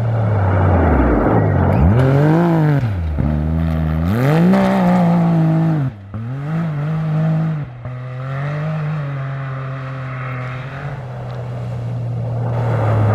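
Rally-raid competition vehicle's engine under hard acceleration, its pitch climbing and dropping twice through gear changes. It lifts off briefly about six seconds in, holds a steady drone for a few seconds, then builds again near the end.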